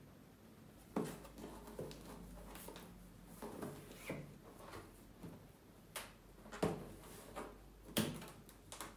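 Cardboard headphone box being handled and opened by hand: scattered taps, knocks and scrapes, a few of them sharp.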